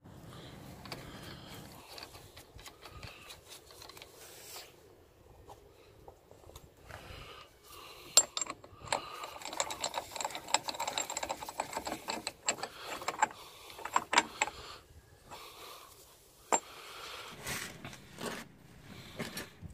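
Hand work on a car's front wheel hub and driveshaft: metal clicks, knocks and rattling of parts and tools, with a stretch of rapid clicking in the middle and a few sharp knocks.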